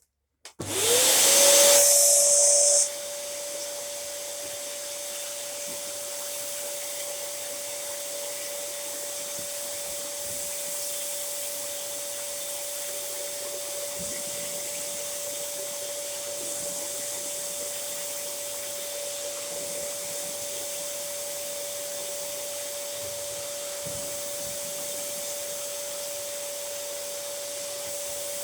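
Dyson DC07 upright vacuum cleaner switched on: its motor spins up quickly to a steady high whine. It is loudest for the first couple of seconds, then runs on evenly.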